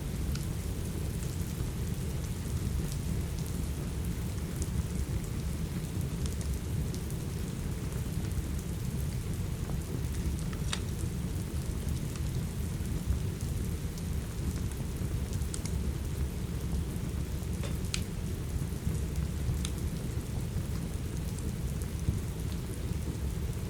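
Steady rain with a deep, even low rumble underneath, and an occasional sharp crackle or pop from a wood fire.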